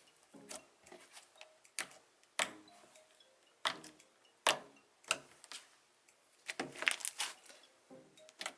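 Slime being squished and pressed in the hands, giving irregular sharp clicks and pops.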